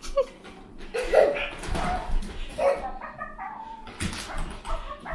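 A battery-powered toy puppy on a leash giving a string of short, high yipping barks, about half a dozen in all.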